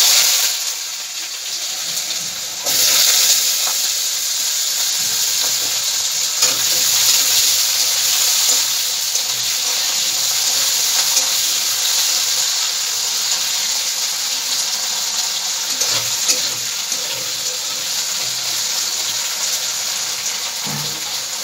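Cut potatoes dropped into hot oil in a kadhai, frying with a loud, steady sizzle that starts abruptly and grows louder about three seconds in.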